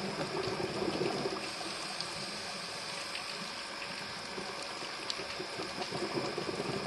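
Underwater ambience on a scuba dive: a steady hiss with a diver's exhaled regulator bubbles bubbling, louder in the first second or so and again near the end.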